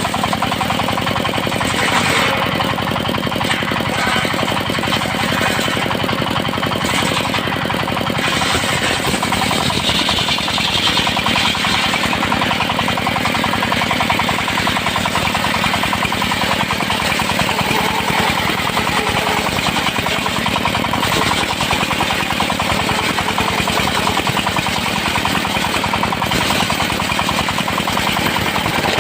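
Engine-driven circular sawmill running steadily while ripping teak into 2 cm boards, the engine's fast, even firing pulses under the sound of the saw. The high part of the sound grows brighter for a couple of seconds partway through.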